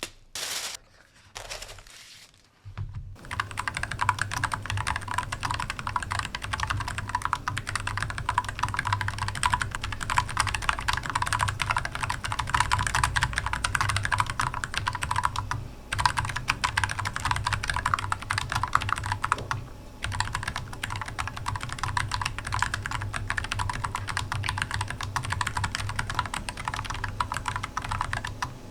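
Fast, continuous typing on an AZIO Cascade Slim 75% keyboard: a dense run of key clicks that starts about three seconds in after a few separate sounds, with two brief pauses partway through.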